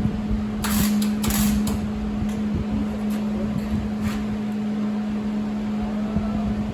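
Electric welder humming steadily, with a few short bursts of crackling arc as tacks and short beads are laid on a steel patch over a rusted cart leg, mostly in the first couple of seconds and once more about four seconds in.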